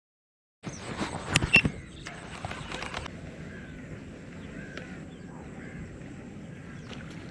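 After a brief dead silence, a handful of sharp clicks and knocks, then a steady outdoor background with birds giving short chirping calls every couple of seconds.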